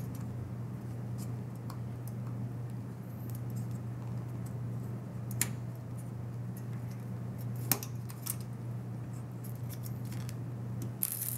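Wire fan-retention clips being unhooked from the fan frame of a be quiet! Shadow Rock LP CPU cooler by hand: a few scattered sharp metallic clicks, the clearest about halfway through and again a couple of seconds later, over a steady low hum.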